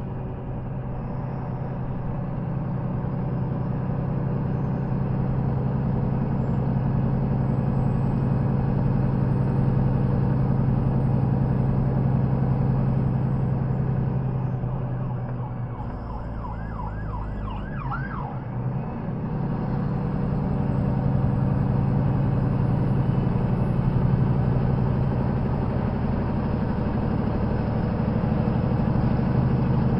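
Semi-truck diesel engine and road noise heard from inside the cab while driving, a steady low hum. About halfway through, the engine note dips and changes briefly, with a few short rising squeaks.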